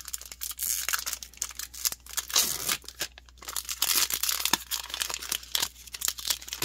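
Foil wrapper of a Magic: The Gathering draft booster pack being torn open and crumpled: a dense run of sharp crinkling and tearing crackle.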